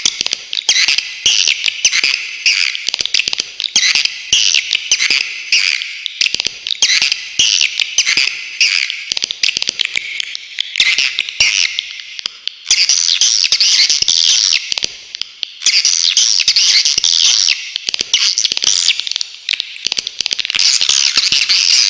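Swiftlets calling: dense, high-pitched, rapid twittering chirps and sharp, buzzy trills. The calls run almost without a break, with two short lulls about twelve and fifteen seconds in.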